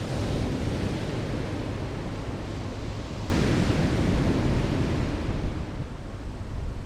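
Surf washing on the beach, with wind buffeting the microphone; the sound jumps abruptly louder about three seconds in.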